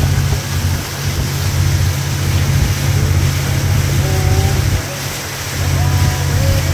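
Steady low rumble of wind buffeting the microphone, with water rushing past a pontoon boat under way. The rumble eases for about a second a little after halfway.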